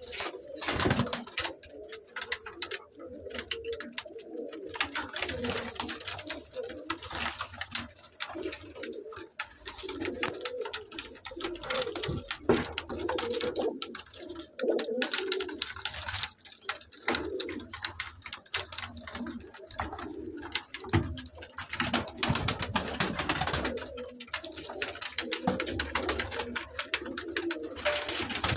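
A flock of domestic pigeons cooing continually, many birds overlapping, with frequent short clicks and scuffles among them.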